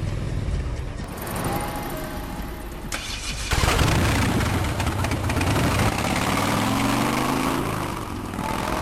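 An engine running, with an abrupt change about three and a half seconds in where it gets louder, then a rev with rising pitch around seven seconds in.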